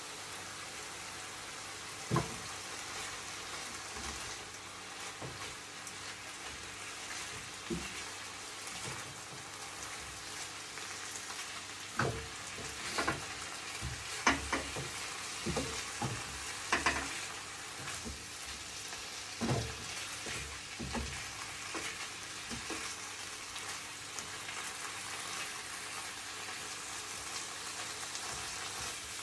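Bite-sized chicken pieces sizzling in a frying pan, with a steady hiss. A utensil stirring them knocks against the pan now and then, mostly in the middle of the stretch.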